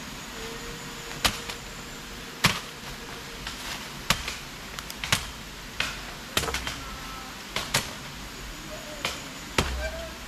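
Machete chopping into a sapling's wood: a series of sharp blows, roughly one a second and unevenly spaced.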